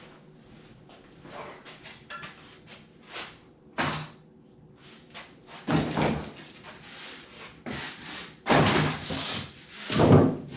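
A series of irregular knocks, bumps and rustling handling sounds, the loudest a few heavy thumps near the end.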